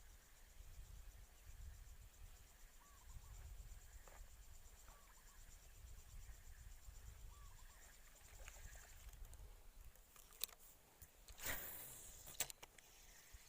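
Faint insect chorus, crickets keeping up a steady high buzz, with a short call repeating every two or three seconds. Near the end come a few sharp clicks and a brief louder rush of noise.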